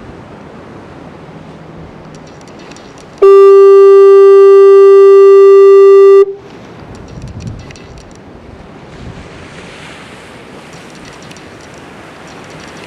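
Fog horn sounding one long, steady, single-pitched honk of about three seconds, starting about three seconds in and very loud. Surf washes on before and after it.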